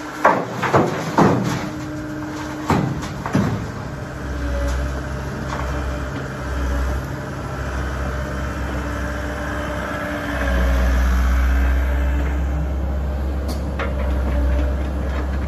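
Komatsu hydraulic excavator's diesel engine running while it dumps concrete rubble into a steel dump-truck bed, with a quick series of bangs and clatters in the first few seconds. The engine's low rumble grows louder about ten seconds in as the excavator swings back to dig, with a couple more knocks near the end.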